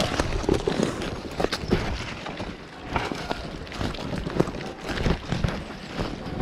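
Running footsteps thudding unevenly, with kit and clothing rustling.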